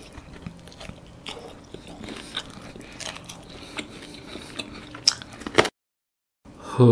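Close-miked chewing and lip smacking as a man eats roasted chicken off the bone with his fingers: a run of small wet mouth clicks and smacks. A sharp click about five and a half seconds in is followed by a brief dead silence from an edit.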